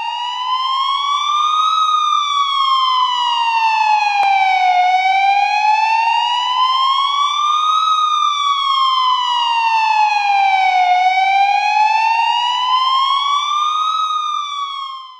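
Siren wailing slowly up and down three times, each rise taking about two seconds and each fall about three.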